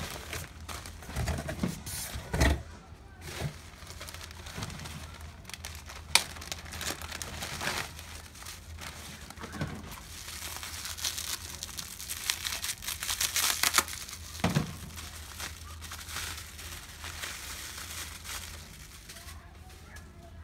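Packaging crinkling and rustling as it is handled and opened, with scattered clicks and light knocks; the densest crinkling comes about halfway through. A steady low hum sits underneath.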